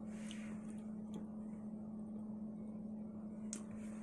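Quiet room tone: a steady low hum with a few faint, short clicks, the sharpest one near the end.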